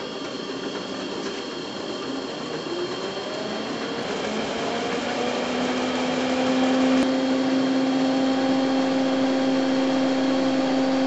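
P4 thermal inkjet pouch printer running: a steady whirring machine noise with a motor hum that rises in pitch about three to five seconds in, then holds steady and grows louder, stopping suddenly at the end.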